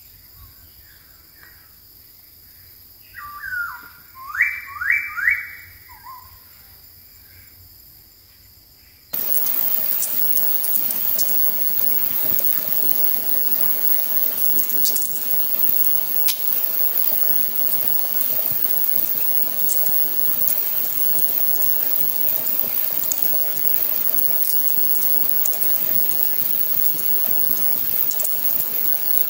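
Masked laughingthrush calling: two quick runs of three or four rising whistled notes. About nine seconds in, a sudden change to a steady rush of running water with small splashes as a bird bathes.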